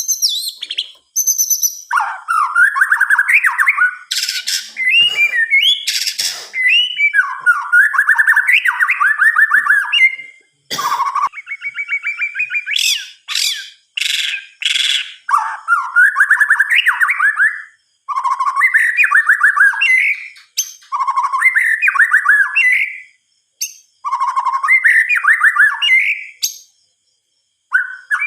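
White-rumped shama (murai batu) singing: a run of phrases of quick, trilled whistles, each a second or two long with short breaks between them, with a few harsh, rasping notes mixed in during the first half.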